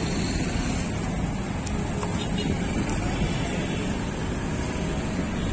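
Steady street traffic noise from passing vehicles.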